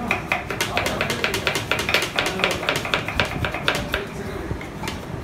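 Two kitchen knives slicing onions on wooden chopping boards: quick, overlapping clicks of the blades striking the wood, about six a second, thinning out about four seconds in.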